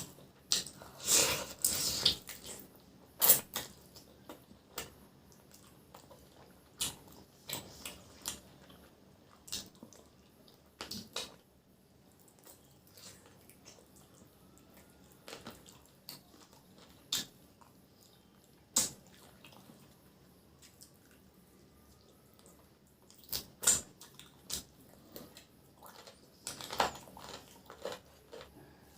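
Close-miked eating sounds of someone chewing chicken curry with rice: irregular wet mouth smacks and clicks with quiet gaps between them, in short clusters near the start and near the end.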